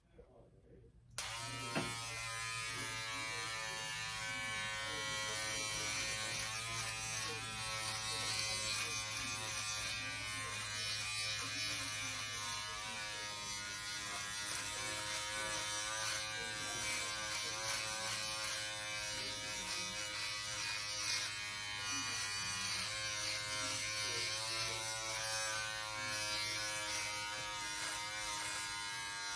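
Braun 6-in-1 electric shaver switched on about a second in and running steadily, its buzz wavering slightly in pitch.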